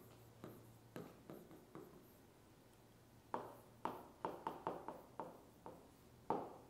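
Stylus pen tip tapping against the glass of an electronic whiteboard as characters are written stroke by stroke: a dozen or so short, faint taps, sparse at first and coming more quickly in the second half.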